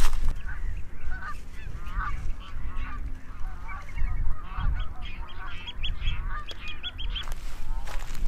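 Geese honking over and over, many short calls overlapping, with a quicker run of short higher-pitched notes joining in from about halfway. A low wind rumble on the microphone runs underneath.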